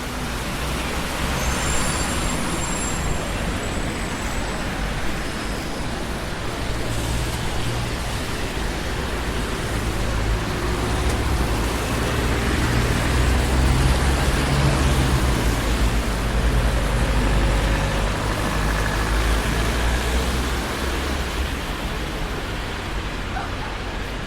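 Busy city street traffic: a steady rumble of passing vehicles that swells louder in the middle, with brief high squeals near the start.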